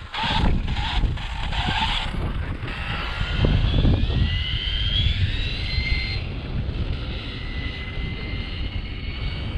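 Electric whine of an RC car's brushless motor and drivetrain rising steeply in pitch as the car accelerates, then holding a high note and fading as it pulls away. Heavy wind rumble on the microphone throughout.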